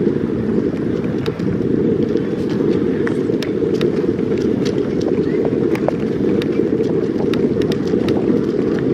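Steady low rumble of wind buffeting the microphone and tyres rolling on tarmac during a bicycle ride, with scattered light clicks and rattles throughout.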